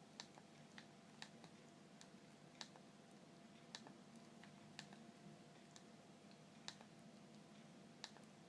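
Faint clicks of a Siemens MC60 mobile phone's keypad buttons being pressed, about one a second at an uneven pace, over a faint steady background hiss.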